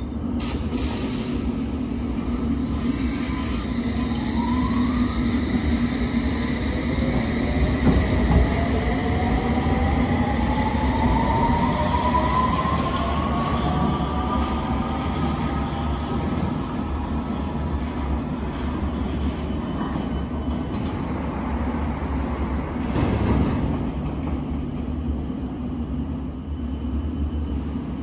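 London Underground S7 Stock train running at the platform, with a steady low rumble of wheels on track and a whine from its traction motors that rises in pitch for about ten seconds as it accelerates. A brief louder rush comes near the end.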